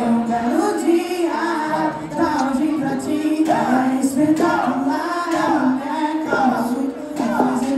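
Live concert music: a singer on a microphone over a backing track, with many voices singing along.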